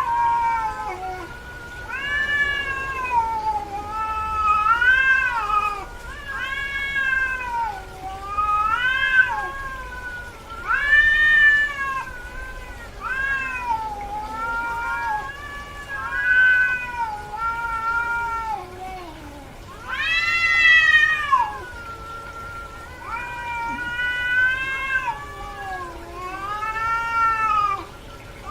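Cat in heat calling: long, drawn-out meows one after another, roughly one every two seconds, each rising and then falling in pitch.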